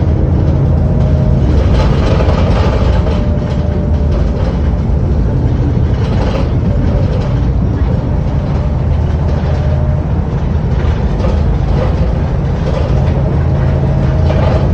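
Diesel engine of a VDL-chassis Wright Pulsar 2 single-deck bus, heard from inside the saloon while the bus is under way: a steady low engine drone with road and body noise over it, easing off a few seconds in and building again later on.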